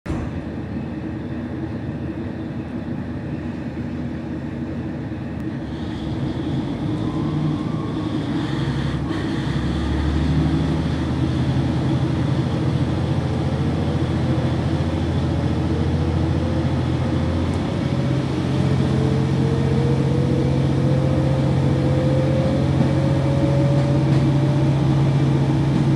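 KiHa 40 diesel railcar pulling away, heard from inside the car: the diesel engine works harder and grows louder as the car gathers speed, with a whine that climbs in pitch several times over.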